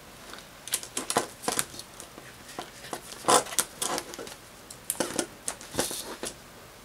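Plastic zipper pouches and paper inserts in a ring-binder cash wallet being handled and turned: irregular light clicks and rustles, the loudest about three seconds in.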